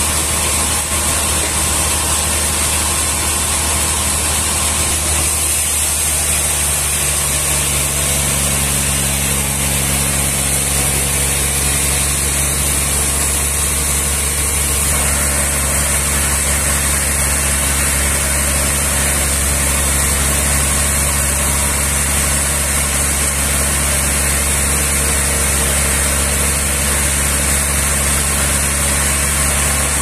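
Sawmill engine running steadily while no cut is under way. The note of its low hum shifts slightly about seven seconds in.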